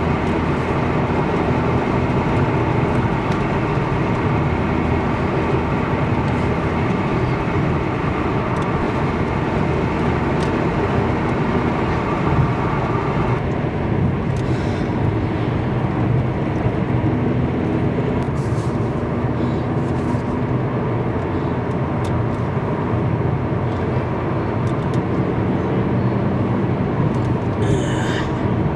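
Steady vehicle noise: a constant hum and rumble, its higher part dropping away about 13 seconds in, with a few faint clicks.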